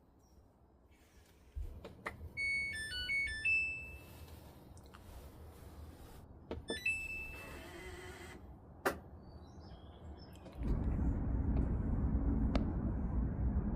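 A short electronic jingle of stepped tones, then a single beep a few seconds later and a click, from a household device. About ten seconds in a steady low rumble starts and continues.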